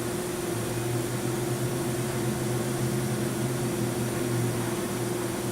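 Steady hum of running machinery fans, with an even low drone and a constant mid-pitched tone throughout.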